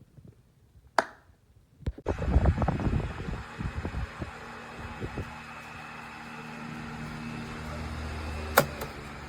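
Electric table fan switched on with a click about two seconds in, then running with a steady whir and hum. Uneven low thumps come in the first two seconds after it starts, and a single sharp click comes near the end.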